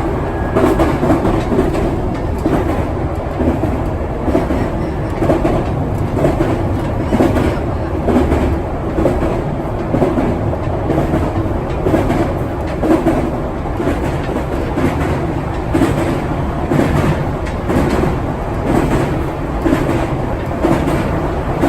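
205-series electric commuter train of the Musashino Line running, a steady rumble with repeated clacks of the wheels over rail joints.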